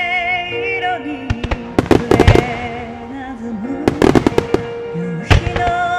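Large aerial fireworks shells bursting in quick clusters of sharp bangs, first about a second and a half in, again past the middle, and once near the end. Under them a hymn melody plays, its high line wavering in pitch.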